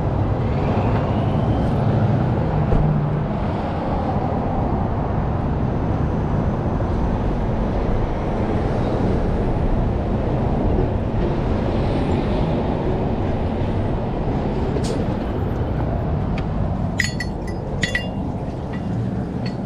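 Steady rushing, rumbling noise, with a few sharp clicks near the end as a glass shop door with a metal push bar is opened.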